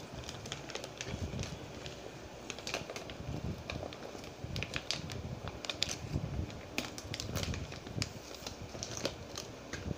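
Brown kraft-paper courier envelope being torn and pulled open by hand: irregular crackling and crinkling clicks of the paper, with dull bumps from handling.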